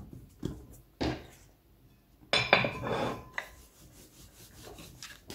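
Wooden rolling pin handled and rolled over pastry dough on a floured wooden board. A few light knocks come first, then a louder stretch of rolling and knocking about two seconds in that lasts about a second, then softer rubbing.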